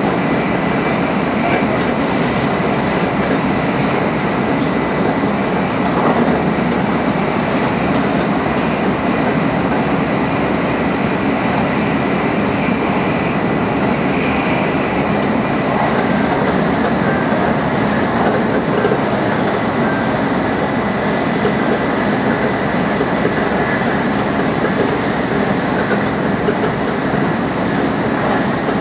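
Tokaido Shinkansen Nozomi bullet train running at high speed: a steady, unbroken rush of rail and running noise.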